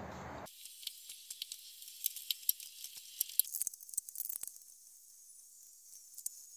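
Faint, irregular clicking of a socket ratchet loosening cylinder head bolts, stopping about four and a half seconds in.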